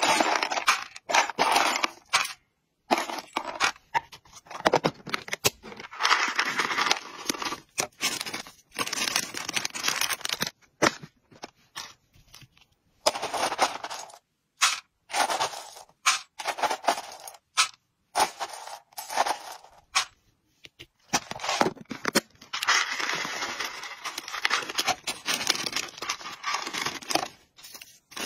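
Metal scoop digging into dry, crunchy hamster treats and tipping them into a clear plastic tub: bursts of crisp rattling and crunching, with short pauses between scoops.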